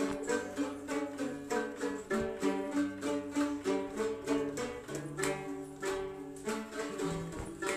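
Plucked string instruments playing a lively local folk tune, with quick, evenly picked notes.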